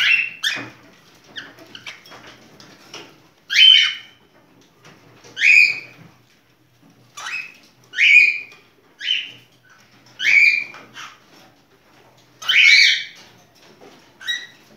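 Cockatiel calling in breeding condition (in heat): about ten loud, shrill calls, each a short note that sweeps up and then bends over, repeated every one to two seconds, with one longer call near the end.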